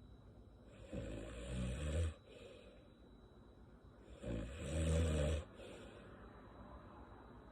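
A woman snoring in sleep, her lips puffing with the breath. Two long, low, buzzy snores come about three seconds apart, with quiet breathing between them.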